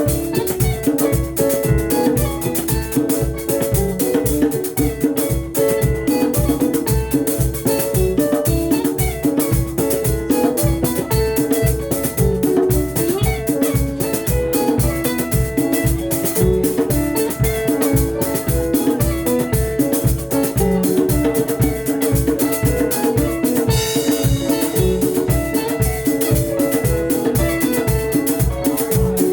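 Live band playing an instrumental passage of a Swahili rumba song: lively interlocking guitar lines over bass and drum kit with a steady, driving beat and no singing.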